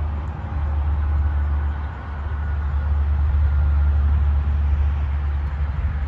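Wind buffeting the microphone as a steady low rumble with a hiss over it.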